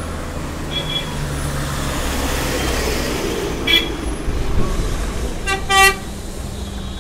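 Close road traffic: a heavy vehicle's engine running low and steady as traffic passes, with vehicle horns tooting three times — a faint brief one about a second in, a short one past the middle, and the loudest, longest toot near the end.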